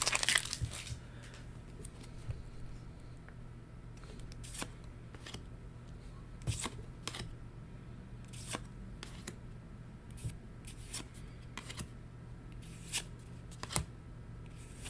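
Weiss Schwarz trading cards being handled and flipped through one at a time: scattered light snaps and slides at uneven intervals. A crinkle from the opened booster pack fades out in the first second.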